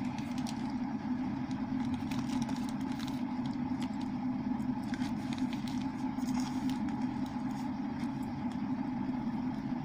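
A steady low hum of background noise with a few faint clicks.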